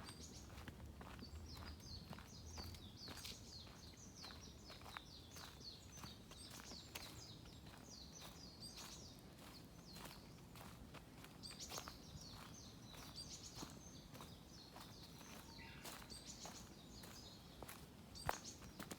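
Footsteps at a steady walking pace on a forest trail, faint, while a small songbird sings long, rapid runs of high chirping notes, twice with a short pause between.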